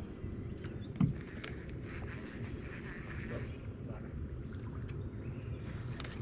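Outdoor ambience around a small boat: a steady high insect drone over low rumbling wind and water noise, with one sharp knock about a second in, like something bumping the hull.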